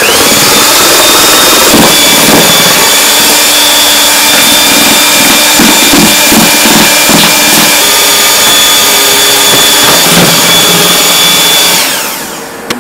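Handheld electric drill with a mixing paddle running steadily with a high motor whine, churning thick starch paste for ba wan skins in a stainless steel basin. The motor cuts off near the end.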